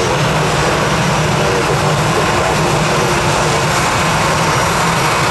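Jet airliner engines running, a loud, steady noise that holds even without rising or falling.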